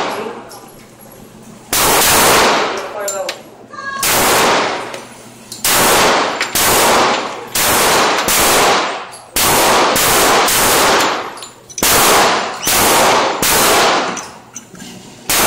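Glock 21 .45 ACP pistol firing a long string of shots, slow at first and then about one every half second to a second. Each shot is sharp and loud, with a long echoing tail from the indoor range.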